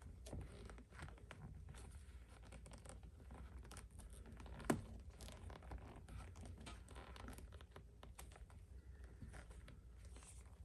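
Faint scratching and rubbing of a rawhide lace being pulled through the lace holes of a leather baseball glove, with a sharper click a little under halfway through.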